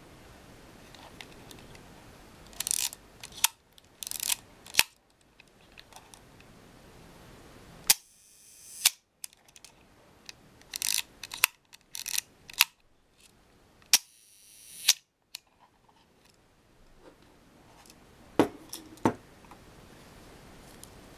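Olympus Pen F film camera being worked by hand: the advance lever wound with a short ratcheting rasp, then the shutter released with a sharp click, several times over. The shutter and mirror are being test-fired after a repair.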